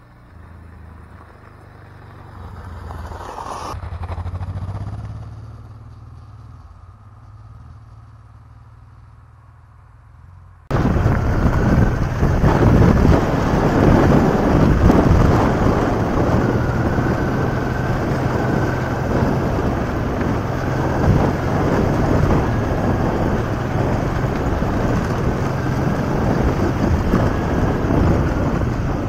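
Honda XL600V Transalp's V-twin engine passing by on a gravel track, swelling to a peak about four seconds in and then fading. About ten seconds in it cuts to the same engine heard from on board, running steadily under way on a rough dirt track with heavy wind and track rumble.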